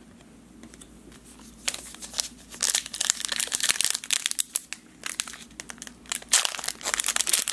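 A foil trading-card pack wrapper crinkling and tearing as it is pulled open by hand, starting about a second and a half in and loudest near the end.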